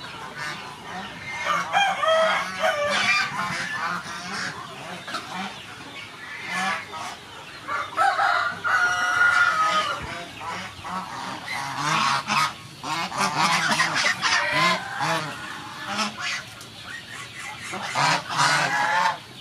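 A flock of domestic geese honking, many calls overlapping in loud bursts that come and go, with the busiest stretches a couple of seconds in, around eight to nine seconds, from about twelve to fifteen seconds and again near the end.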